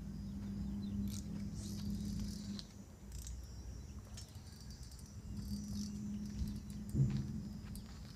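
Insects chirping in a high, continuous chorus, over a low steady hum that fades out partway through and returns. There is a single knock near the end.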